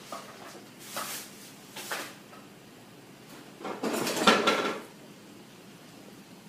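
Handling noises: two short rustling sounds about one and two seconds in, then a longer, louder rustle about four seconds in.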